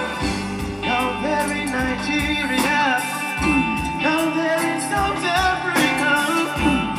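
Live reggae band playing, with drums and a singing voice over the music.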